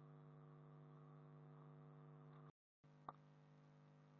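Near silence: a faint, steady electrical hum. It drops out completely for a moment past halfway, and there is a single short click about three seconds in.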